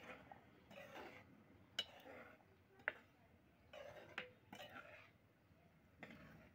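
Perforated metal slotted spoon stirring thick rajma curry in a metal kadhai: short wet scraping strokes, with four sharp clinks as the spoon hits the pan.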